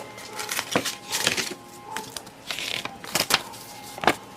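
Packaging and its contents being handled as they are unpacked from a box: rustling with several sharp clicks and taps.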